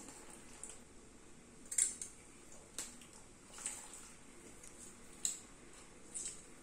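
A lemon squeezed by hand over a pot of lentil broth: about five soft, short squelches and drips, roughly one a second.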